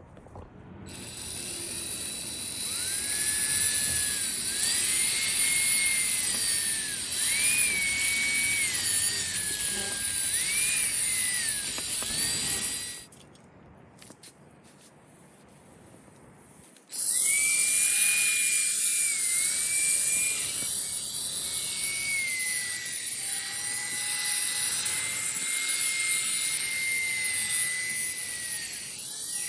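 A handheld power tool spinning a polishing pad on a headlight lens, polishing after sanding: a steady motor whine whose pitch wavers up and down with the pressure. It runs, stops for about four seconds around halfway, then runs again.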